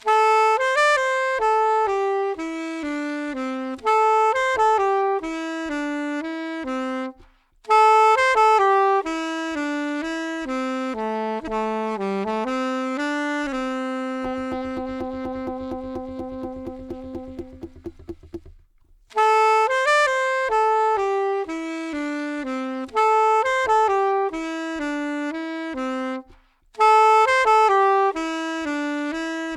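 Saxophone playing a slow, relaxing melody in phrases separated by short breaths, with one long held low note in the middle, over a faint low regular beat.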